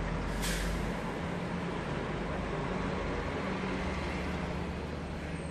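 Steady low mechanical rumble with a hum under a hiss of outdoor background noise, and a brief sharp high swish about half a second in.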